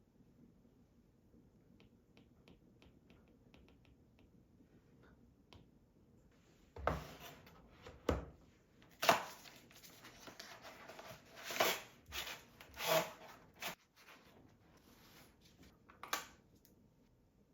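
Hands handling objects on a desk: faint light clicks at first, then a string of louder knocks, taps and rubbing sounds over several seconds, with one last knock near the end.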